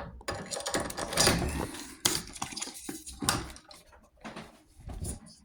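A 16 mm film reel being fitted back onto the projector's reel arm by hand: irregular clicks, knocks and rustling of plastic and metal.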